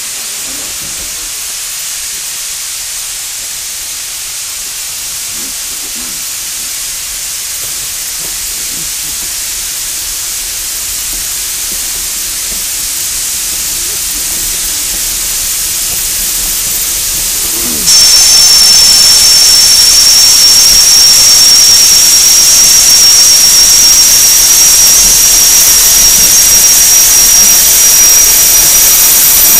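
Shay geared steam locomotives working a train: a steady steam hiss that slowly grows louder. About 18 seconds in it jumps suddenly to a much louder hiss with a high, steady squeal as a train of log cars passes close by.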